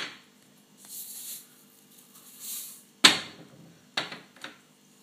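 Salt and pepper being shaken into a plastic food processor bowl: two short gritty hisses about a second apart, followed by three sharp knocks.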